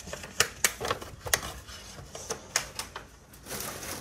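Trading cards and their packs handled close by on a wooden table: an irregular run of sharp clicks and taps, a few a second, turning to a denser rustle near the end.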